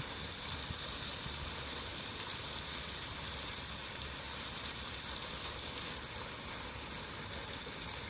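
Steady, even hiss of running water, such as a stream or small waterfall, with no change through the stretch.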